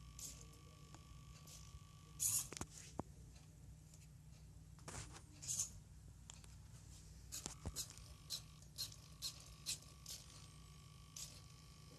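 Small pen-drawing robot at work: scattered soft clicks and brief scratches over a faint low hum and a thin steady whine that stops a couple of seconds in and returns near the three-quarter mark.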